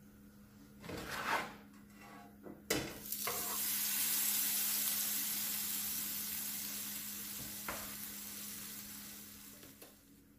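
Butter-spread sandwich flipped in a hot non-stick frying pan: a scrape and a knock as it is turned over and lands, then sizzling as the buttered side meets the pan. The sizzle fades slowly over the following seconds.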